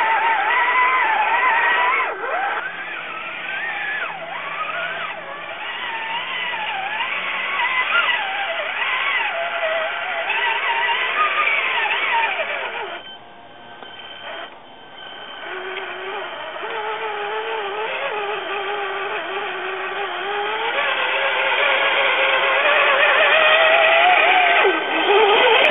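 Electric motor and gear whine of an RC4WD Trail Finder 2 scale crawler, rising and falling in pitch with the throttle as it crawls over rocks. It nearly drops out about 13 seconds in, runs steadier for a few seconds, then climbs and grows louder near the end.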